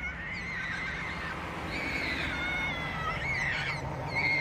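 Several high-pitched, wavering animal calls, each drawn out for up to about a second and overlapping one another, over a low steady hum.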